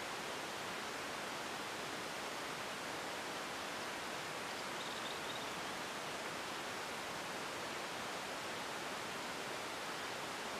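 Steady, even hiss of outdoor background noise, with a few faint high chirps about halfway through.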